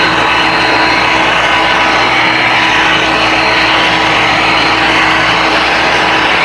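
DeWalt 20V cordless saw in a homemade table saw running steadily at full speed, a constant motor whine over the spinning blade's noise.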